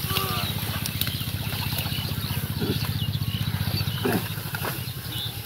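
A small engine running steadily nearby: a low, fast-pulsing drone that eases slightly about four seconds in.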